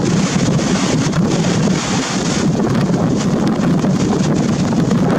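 Strong wind buffeting the microphone in a steady low rumble, over the rush of rough surf.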